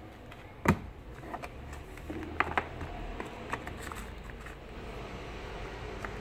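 Hands handling a smartphone and its cardboard packaging. There is one sharp knock about a second in, then a few lighter clicks and taps of cardboard and accessories, over a low steady hum.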